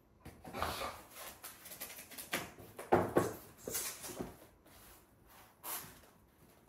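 Corrugated-cardboard cat scratcher pieces being handled, set down and slid across a wooden floor: a run of irregular scrapes and knocks, the loudest about three seconds in.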